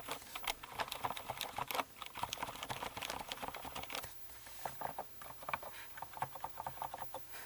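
Typing on a mechanical keyboard fitted with Cherry MX Silent Red linear switches, lubed with Krytox 103 and with 62 g springs: a fast, irregular run of keystrokes, with a short lull about four seconds in.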